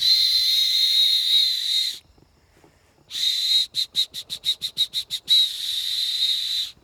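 A whistle sounding one high, steady pitch with a breathy hiss. It holds a long note for about two seconds and pauses. Then it comes back as a quick run of short toots, several a second, and ends on another long held note.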